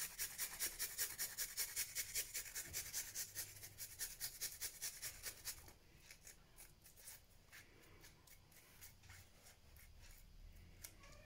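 Garlic cloves being grated on a small flat stainless-steel hand grater, a quick rasping scrape at about four strokes a second. About halfway through it turns fainter and more irregular.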